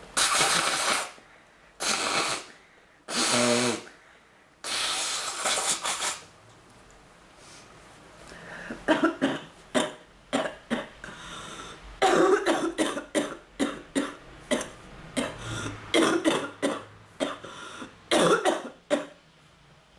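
Coughing fit from a woman with bronchitis. A few long, harsh coughs come first, then from about nine seconds in a long run of short coughs in quick succession.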